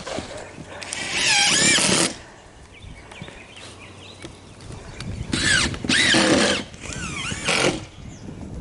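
Power drill driving screws in four runs, one of about a second near the start and three shorter ones in the second half, its whine bending in pitch as each screw loads the motor.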